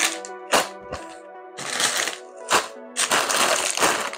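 Sealed plastic bags of tiny building bricks crinkling and rustling in irregular bursts as they are handled, with the loose bricks rattling inside, over background music.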